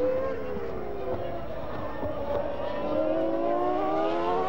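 Formula One engines, the Williams-Renault V10s, running at racing speed. Their pitch falls over the first second, then climbs steadily over the last second and a half as they accelerate.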